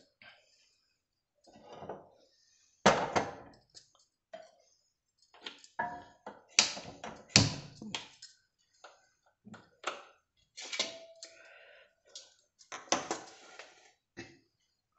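Cookware being handled: a string of separate clanks and knocks with short pauses between them, as a heavy black dosa tawa is set onto a gas stove and moved into place.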